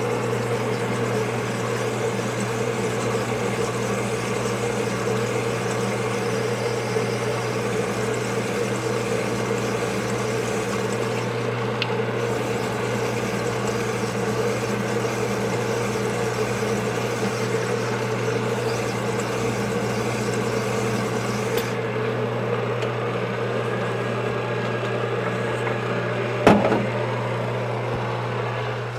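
Sunnen LBA-666 cylinder hone running: its motor hums steadily and honing oil splashes while a Suzuki TS125 two-stroke cylinder is worked back and forth over the spinning stones, at light stone pressure to bring the bore to final size. The higher hiss drops away about three-quarters of the way through, and a single sharp knock comes near the end.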